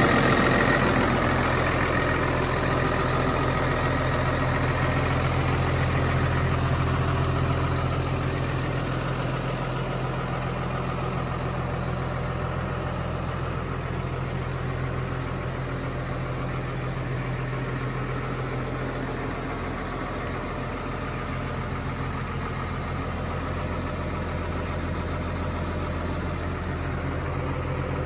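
New Holland T7.200 tractor's six-cylinder diesel engine idling steadily with a low, even hum. It is louder for the first few seconds and somewhat quieter after that.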